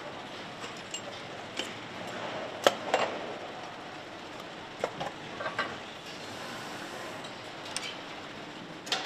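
Engine assembly-line machinery running steadily, with scattered sharp metallic clanks and clinks, the loudest a little under 3 s in and a cluster around 5 s.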